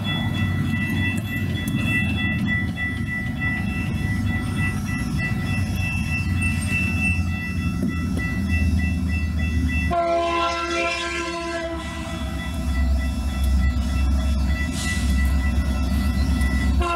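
Grade-crossing bell ringing in a steady quick pulse, with low wind rumble on the microphone. About ten seconds in, an approaching WSOR freight locomotive's multi-note air horn begins blowing and is held to the end.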